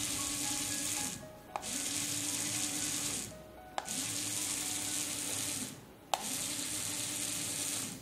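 Small DC gear motor driving a yellow plastic wheel, whirring steadily, then winding down and starting again three times in a row, each restart beginning with a sharp click; it is being switched off and on by an infrared remote through a TSOP1738 receiver circuit.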